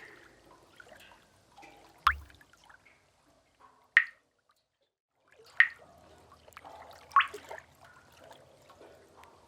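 Water drips falling into a pool in a cave: four separate plinking drops a second or two apart, over a faint wash of moving water.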